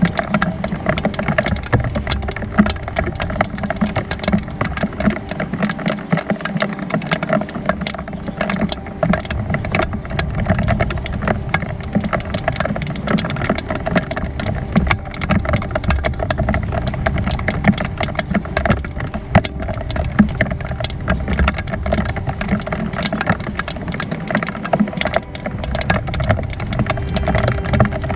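Heavy rain, with a dense, continuous patter of raindrops striking close by, as sharp quick ticks over a low steady rumble.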